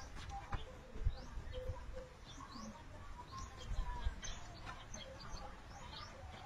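Birds chirping repeatedly in short, high, rising calls, with a few light knocks of hollow concrete blocks being handled.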